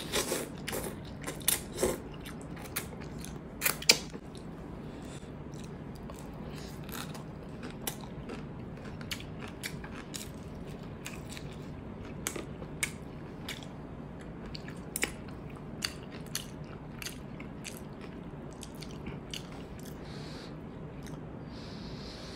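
Close-up eating sounds: noodles slurped in at the start, then chewing with many short, sharp, wet clicks and crunches, the loudest in the first few seconds and then scattered.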